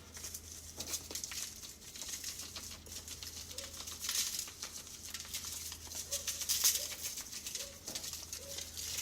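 Dry seasoning being shaken or sprinkled onto raw chicken, a soft patter of grains with a couple of louder swells of hiss.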